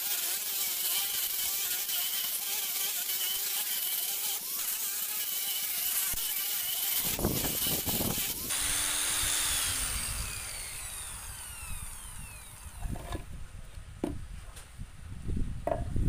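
Angle grinder with an abrasive disc running against a carved wooden panel, sanding the relief. About eight seconds in it is switched off and its whine falls as the disc spins down. Soft knocks and rubs of hands on the wood follow near the end.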